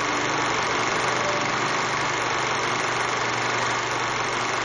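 Steady, unchanging machine-like whirring noise with a low hum.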